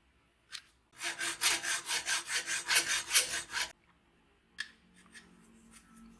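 Rapid back-and-forth hand rubbing strokes on wood, about six a second for roughly three seconds, as when sanding or abrading the level's wooden body. A single click comes before the strokes and another after.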